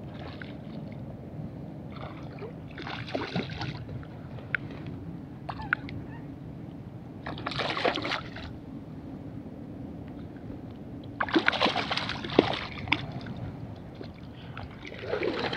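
A hooked coho salmon thrashing at the surface in shallow water, in bursts of splashing every few seconds, over a steady low background rumble.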